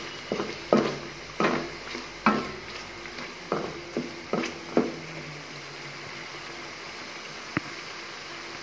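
A wooden slotted spatula knocks and scrapes against a cooking pan while stirring pieces of hilsa fish frying in oil and spice paste, over a faint steady sizzle. The knocks come about once or twice a second for the first five seconds, then stop, with one last tap near the end.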